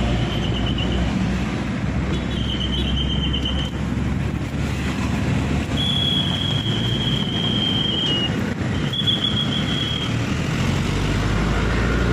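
A steady low rumbling noise. Over it, a high thin whistling tone comes and goes four times, each time held for one to two seconds. The longest starts about six seconds in and dips slightly in pitch as it ends.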